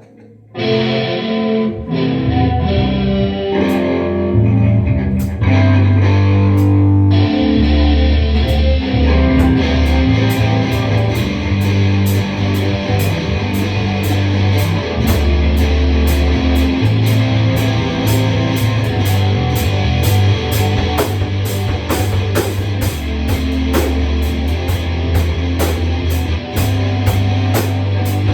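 Rock music: electric guitar over heavy low bass notes, with a drum kit coming in on a steady beat about nine seconds in.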